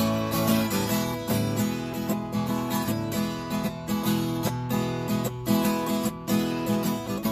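Fender Sonoran acoustic-electric guitar with a solid top, strummed hard and percussively in a steady rhythm of ringing chords. This is the heavy strumming style that the owner finds turns this guitar's sound into noise.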